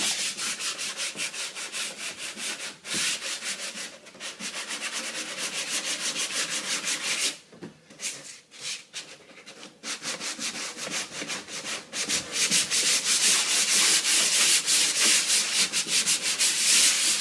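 Sandpaper rubbed by hand over a fiberglass shower base in quick back-and-forth strokes, with a short pause about halfway through. The surface is being scuffed so the inlay's adhesive can bite into it.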